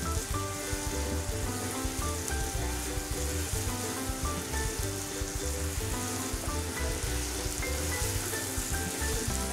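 Ground spice paste sizzling in hot oil in a frying pan as it is stirred with a wooden spatula. Background music with a steady, repeating bass line plays over it.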